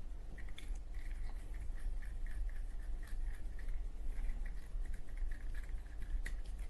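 Wet cotton swab scrubbing inside the metal chimney of a Zippo lighter: quick, irregular scratchy rubbing strokes, over a steady low hum.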